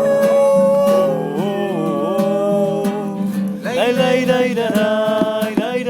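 A recorded song playing: guitar accompaniment under a gliding melodic line, loud and steady.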